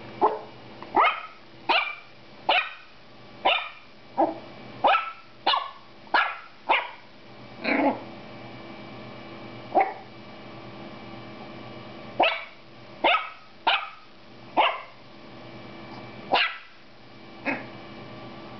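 Black toy poodle puppy barking at its own reflection in a mirror: about eighteen short, high-pitched barks in quick runs, with a gap of a few seconds midway broken by a single bark.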